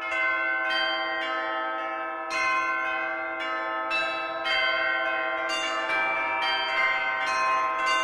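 Bells pealing: a run of strikes about two a second, each ringing on and overlapping the next.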